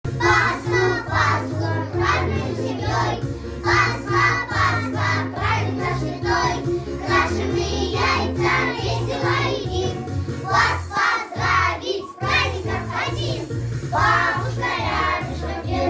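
A song: a singing voice with a wavering, held melody over instrumental accompaniment with a steady bass line.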